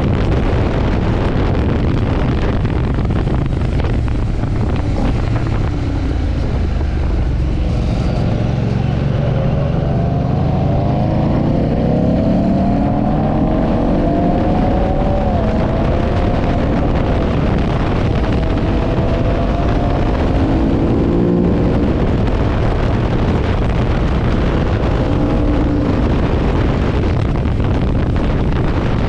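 Ducati Monster S4RS L-twin engine under way, its pitch climbing through the revs and dropping at gear changes through the middle, under heavy wind noise on the microphone.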